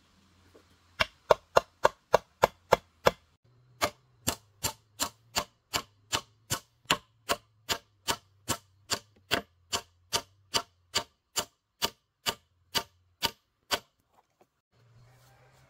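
Hammer blows on wood, driving a wooden block onto a wooden fence post. A quick run of about seven blows is followed by a short pause, then a long, steady run of about three blows a second that stops near the end.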